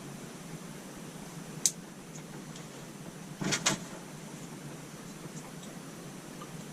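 Small parts and wires being handled during electrical work: one sharp click about one and a half seconds in, then a short cluster of clicks and rattles a couple of seconds later, over a steady low hum.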